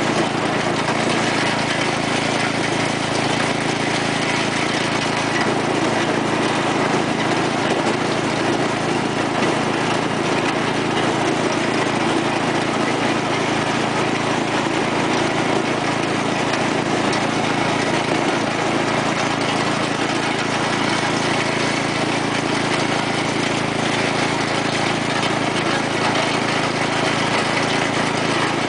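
1990 Sears Craftsman lawn tractor's 12 hp Briggs & Stratton Industrial/Commercial single-cylinder engine running steadily through an MTD-style muffler as the tractor drives along, its pitch and loudness holding constant.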